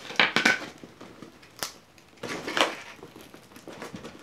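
Packing tape being pulled and torn off a small cardboard box: crackly rips about a quarter second in and again a little past two seconds, with a sharp click between them and lighter cardboard rustling after.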